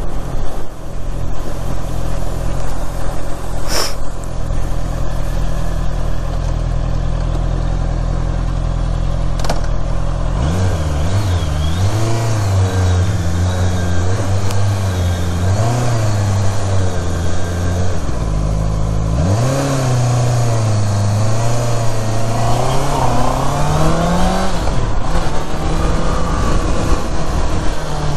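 Honda CBR650R's inline-four engine heard from the rider's seat, with wind noise over the microphone. For about the first ten seconds the engine note holds steady and low, then the revs rise and fall again and again as the bike slows and accelerates.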